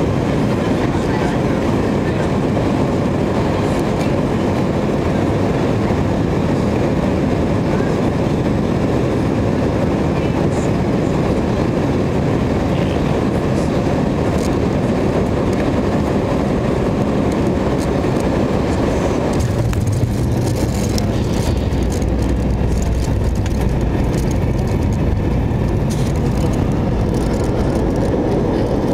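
Cabin noise of an MD-88 jet airliner landing: a loud, steady roar of its rear-mounted engines and rushing air on final approach. About twenty seconds in the sound changes as the wheels touch down, giving way to a deeper rumble with knocks and bumps from the runway as the jet rolls out with its spoilers up.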